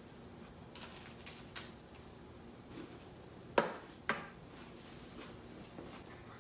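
A plate set down on a hard coffee-table top: two sharp clinks about half a second apart, after some light rustling.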